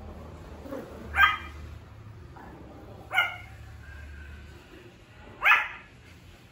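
Pomeranian puppy barking, three small, high barks about two seconds apart: a young puppy that has only just started to bark.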